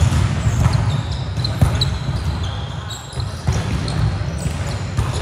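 Basketball being dribbled on a gym court, irregular thumps of the ball, mixed with short high squeaks.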